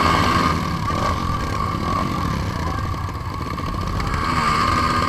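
Motocross dirt bike engines running at low speed, the pitch rising and falling with the throttle.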